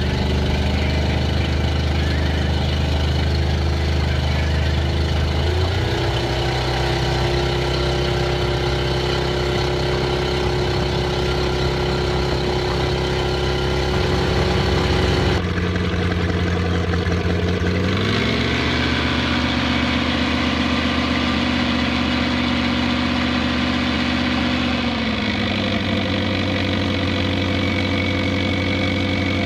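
1999 Crownline 225 BR's MerCruiser 5.0 V8 sterndrive engine with thru-hull exhaust, running underway with its note stepping up about six seconds in. About halfway through the sound changes abruptly to the same engine running on the trailer on a flushing hose. There it revs up, holds for several seconds, then drops back.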